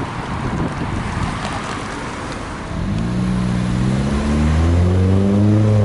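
Wind rumble on the microphone, then about three seconds in a road vehicle's engine starts pulling away, its pitch rising steadily and growing louder toward the end.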